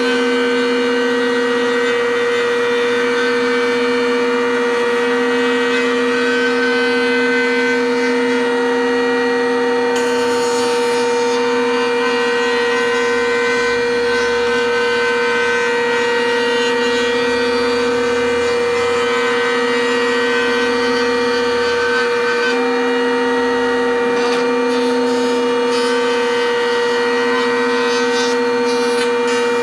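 Electric router running at a constant speed while it cuts a small chamfer along the edge of an acrylic piece. The motor gives a steady, loud whine with a strong low tone.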